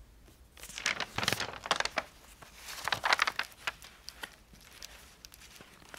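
Pages of a spiral-bound binder being turned by hand, rustling in two bouts about a second in and about three seconds in, with a few light handling ticks after.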